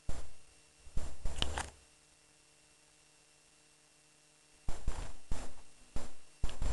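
Close knocks and scuffs from handling a handheld camera while walking with it: one knock at the start, a short cluster about a second in, then a quick run of them in the last two seconds, over a faint steady hum.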